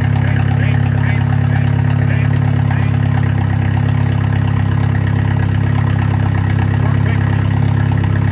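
Mini Cooper's N16 1.6-litre four-cylinder engine idling steadily, its first running after a timing-chain replacement.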